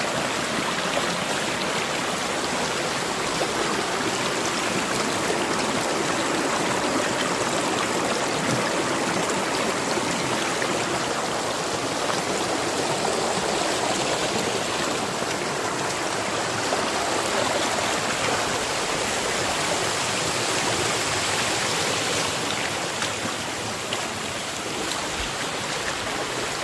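Fast-flowing stream rushing over rocks in a steady, loud rush of water, easing slightly near the end.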